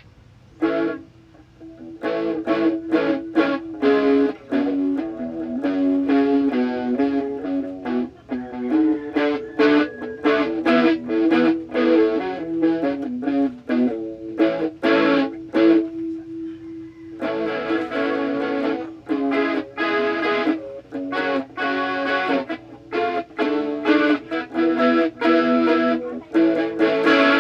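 Electric guitar played through a Mosky distortion pedal in a sound check: runs of picked notes and chords, one note held for about two seconds, then a brief gap before the playing resumes.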